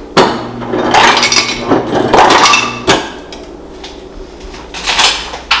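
Ice cubes clattering and clinking into a glass for about three seconds, stopping abruptly, then a few lighter clinks and a sharp knock near the end.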